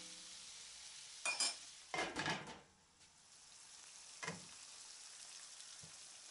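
Chicken, onion, carrot and sweet pepper sizzling faintly in a deep frying pan, with a metal clink about a second in and a short scrape just after. The sound drops out briefly near the middle, then a glass pan lid clinks against the pan as it is lifted off.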